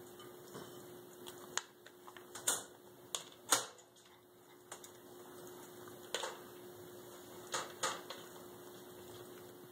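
A Siamese cat pawing at and eating dry kibble softened in water in a ceramic bowl. It makes about eight irregular, sharp wet clicks and taps over several seconds, with a faint steady hum underneath.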